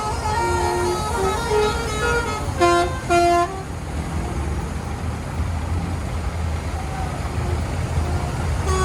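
Musical telolet bus horn playing a stepped, tune-like run of notes, then two short, loud toots about two and a half and three seconds in. After that mostly the low rumble of the bus engine, with the horn tune starting again near the end.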